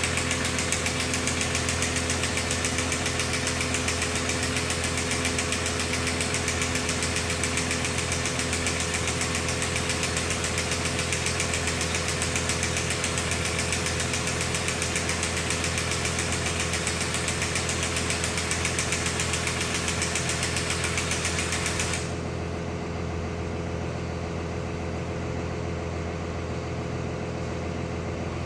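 Hyundai HX220AL excavator's diesel engine idling steadily, with a power grease gun running at the same time as grease is pumped into a fitting on the stick. The grease gun stops suddenly about six seconds before the end, leaving the engine idling alone.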